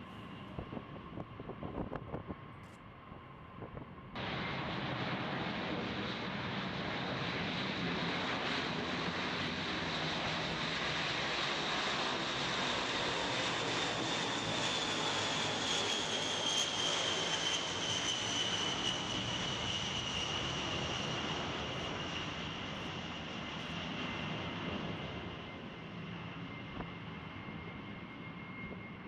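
B-52H Stratofortress jet engines passing: a loud rushing noise sets in suddenly about four seconds in, swells, then fades while a high whine falls steadily in pitch.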